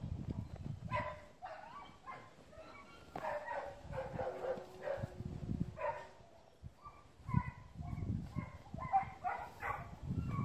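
A dog making many short, high-pitched calls in quick succession, some bending up and down in pitch.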